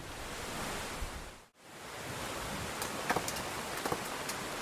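Steady heavy rainfall, a dense even hiss, with sharp drip ticks in the second half. The sound cuts out briefly about one and a half seconds in, at a scene cut.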